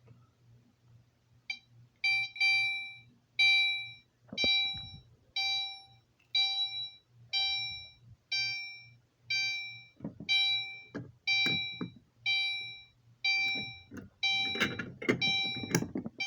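Fire alarm horn strobe set to chime, likely the Gentex Commander 3, sounding a repeated ding about once a second, each ding fading away, over a low steady hum. In the last few seconds several knocks and rattles sound alongside the dings.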